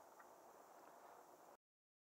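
Near silence: a faint steady background hiss that cuts off to total silence about a second and a half in.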